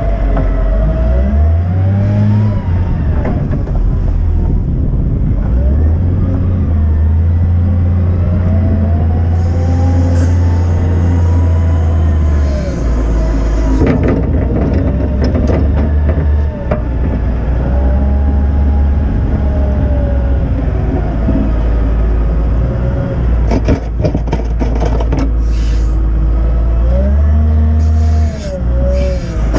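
Volvo L60E wheel loader's diesel engine running under load, its revs rising and falling repeatedly as the machine drives and works the bucket. A few sharp knocks sound in the second half.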